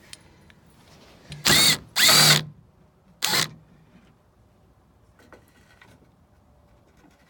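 Power drill with a socket spinning off a fastener in three short bursts, each rising in pitch as the motor speeds up.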